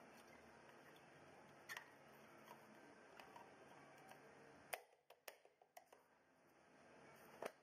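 Near silence broken by a few faint clicks and light taps, a handful close together about five seconds in, as a wheel center cap is pressed and seated onto the alloy wheel's hub.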